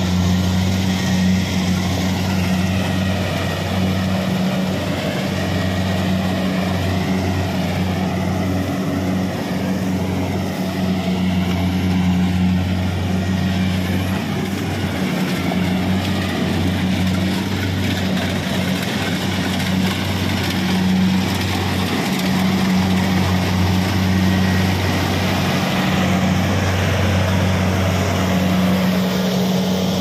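Kubota DC-70 rice combine harvester's diesel engine running steadily at a constant pitch, with the noise of its harvesting machinery.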